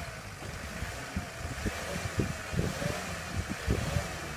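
Nissan Patrol engine running while the stuck 4x4 sits in a ditch, its left wheel spinning freely in the air with no traction. Wind buffets the microphone in irregular low thumps.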